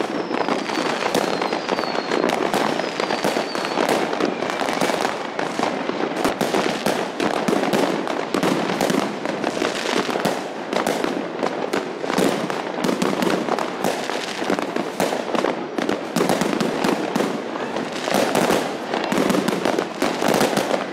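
Many fireworks and firecrackers going off at once: continuous crackling and banging with no break. In the first few seconds there are a few whistles that fall in pitch.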